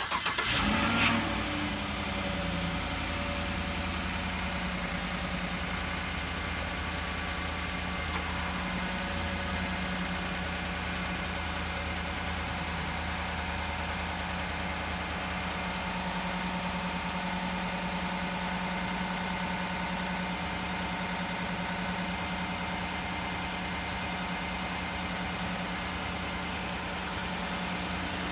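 2016 Chevrolet Silverado engine just after starting, its revs dropping from the start-up flare within about three seconds and then idling steadily.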